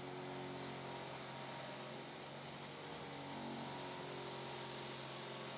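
Bench grinder running steadily with a small metal part pressed against its spinning wheel: an even motor hum under a steady hiss of the metal being worked.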